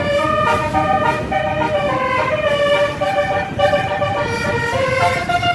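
A bus's basuri 'telolet' musical horn playing a tune of held notes that step up and down in pitch, over a low rumbling noise.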